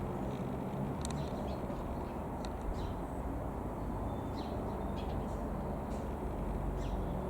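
A steady low engine drone, with small birds chirping briefly now and then.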